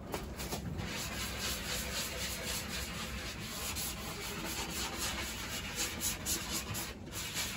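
Sanding sponge rubbed back and forth by hand over a wooden cabinet face frame, in quick repeated strokes, scuffing the first coat of polyurethane so that the second coat will stick.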